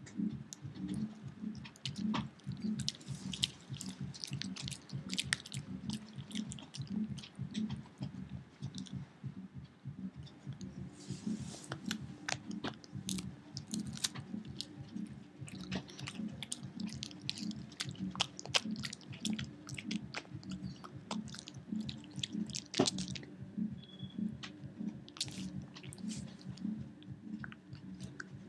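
A young Pekingese dog chewing steadily on a rawhide treat, a regular run of chews with sharp clicks of teeth on the hide.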